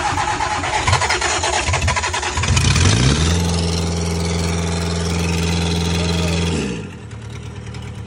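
Four-cylinder diesel engine of a Gehl skid steer being cranked by the starter, catching about two and a half seconds in and rising to a steady run, then falling away in pitch and level near the end. This is a first start on a freshly rebuilt fuel injection pump with new injectors.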